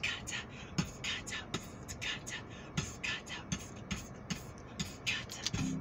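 Vocal beatboxing into a microphone: low kick-drum thuds about every three-quarters of a second with hissing hi-hat sounds in between, heard played back through a tablet's small speaker. A guitar comes in at the very end.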